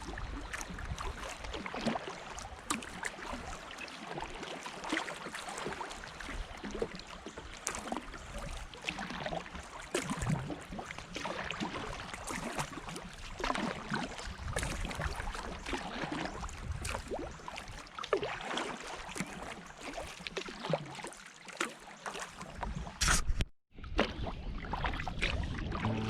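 Kayak paddling on a river: paddle blades dipping and splashing, with water sloshing and gurgling around the hull in irregular strokes. There is a short break in the sound near the end.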